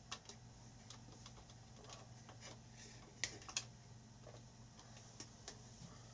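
Scattered faint clicks and taps, with two sharper clicks a little past three seconds in, over a low steady hum.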